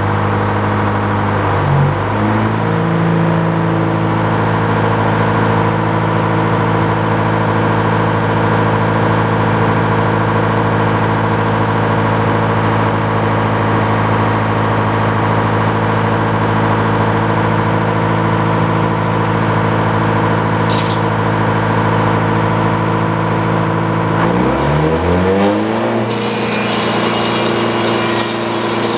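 Power saw motor running steadily with an even hum. Its pitch dips briefly about two seconds in, and slides again near the end as the load changes.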